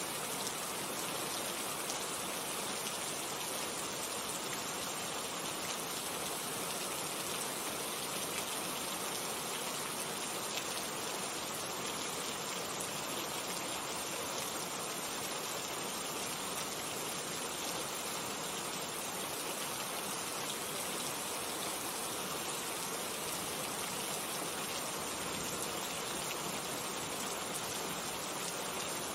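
Steady rain falling, a constant even hiss with faint pattering of drops.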